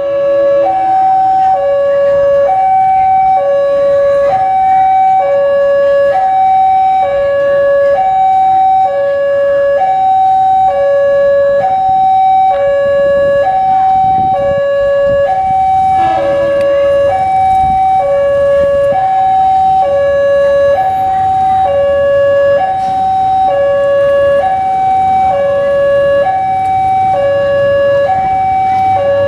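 A two-tone electronic warning signal sounds continuously, alternating evenly between a higher and a lower note about once a second.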